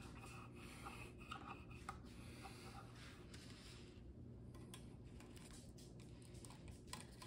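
Faint rubbing and small clicks of a 19 mm sausage casing being worked by hand onto a sausage stuffer's narrow stuffing tube, over a low steady hum.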